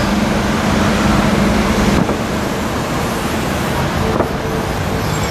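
Busy city street traffic: car engines running and tyres on the road, with a steady low engine hum that drops away about two seconds in.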